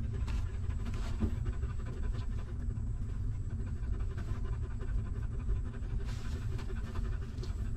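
A nursing mother dog panting, over a steady low rumble.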